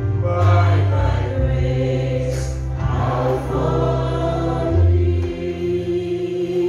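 Gospel singing by a small group of singers on microphones, over long held low accompanying notes.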